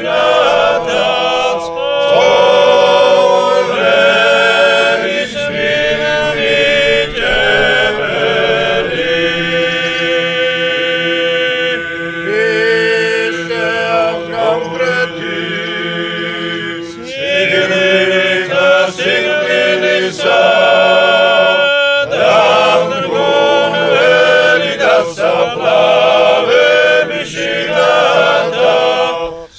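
Choir of men's voices chanting a Greek Orthodox hymn in Byzantine chant, unaccompanied, in long held notes. There are short breaks between phrases about 17 and 22 seconds in.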